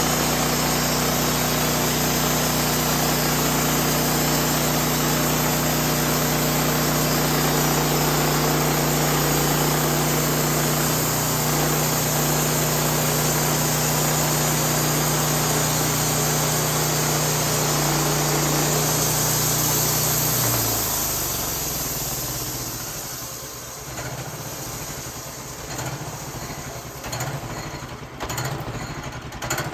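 Engine of an 18-horsepower bandsaw sawmill running steadily under load while the blade saws through a white oak log. About two-thirds of the way through, its pitch drops and the sound falls off to a quieter, uneven running.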